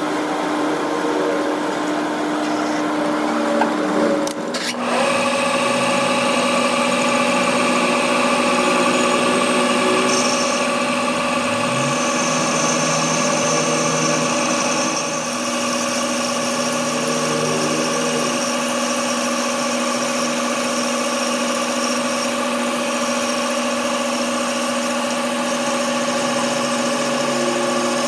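A workshop machine's electric motor running steadily with a constant hum. It breaks off briefly about four and a half seconds in, then carries on a little lower in pitch.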